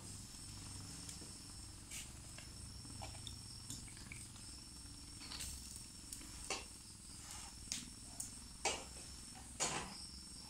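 Cream sauce sizzling faintly in a stainless steel wok, with a faint steady high whine and scattered light clicks and knocks as penne is added and worked with a wooden spatula.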